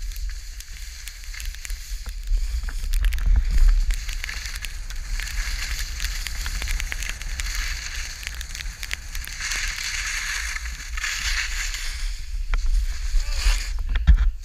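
Skis sliding over snow with a hissing scrape that swells in surges as they carve, over a steady low rumble of wind buffeting the camera's microphone, with scattered small clicks.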